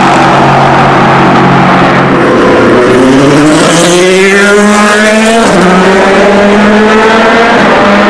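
Le Mans prototype race car under hard acceleration, its engine pitch climbing for a couple of seconds as it comes by and dropping suddenly about five and a half seconds in. Another car's engine runs steadily underneath.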